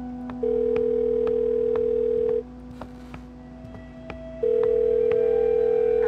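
Telephone ringback tone of an outgoing call ringing out, not yet answered: a steady tone that sounds twice, about two seconds each with a two-second gap. Under it runs a low steady hum with soft ticks about twice a second.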